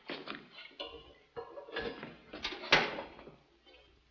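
Irregular knocks and clatter of tools and a toolbox being handled and picked up, with one sharp knock about three seconds in.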